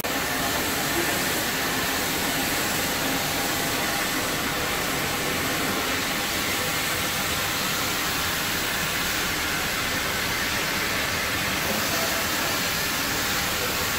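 Rail edge deburring machine running: a spinning brush wheel chamfering the edges of a steel linear guide rail makes a steady hiss that stays at one level throughout.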